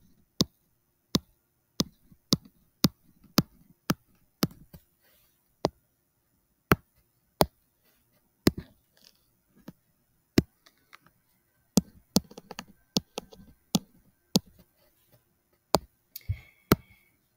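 Sharp, irregularly spaced clicks and taps of a stylus tip striking a tablet screen during handwriting, about two dozen in all.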